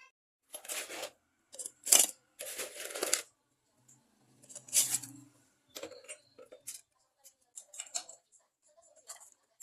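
Kitchen utensils and containers being handled: a few short scraping, rustling bursts and clinks, the sharpest click about two seconds in, then scattered light taps.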